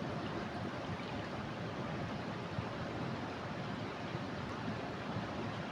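Steady rush of a flooded river, the swollen water running hard and even.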